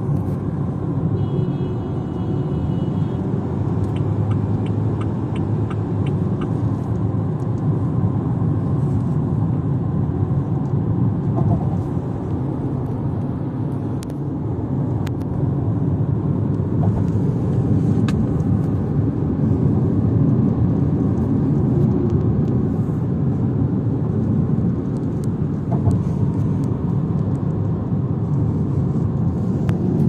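Steady road and tyre noise with engine hum from a Haval Jolion crossover being driven, heard from inside the car. Faint high tones and a short run of light ticks come in the first few seconds.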